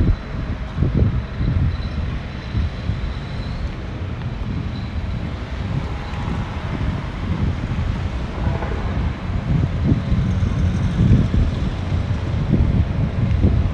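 Wind buffeting the microphone: an uneven, gusty low rumble that swells and drops every second or so.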